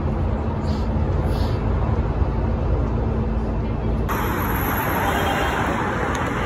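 Steady rumble of a moving train heard from inside the carriage, with a faint low hum held under it. About four seconds in it cuts to a louder, hissier outdoor city noise.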